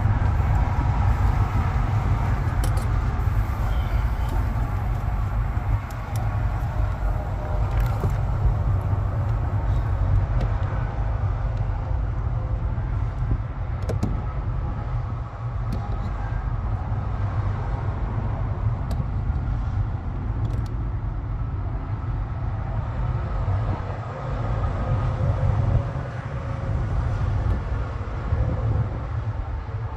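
Steady low rumble of an idling diesel truck engine, with scattered small clicks and knocks of handling in the cab.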